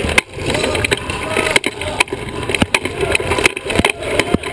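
Sports wheelchair rolling fast on a hardwood gym floor, heard from a camera mounted on its frame: a steady rattle and rumble from the chair, cut by irregular sharp knocks and clicks.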